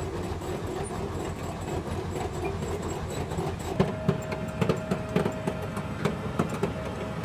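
M1A1 Abrams tank running with a steady low rumble. From about four seconds in come irregular metallic clanks, typical of its tracks, over a steady whine.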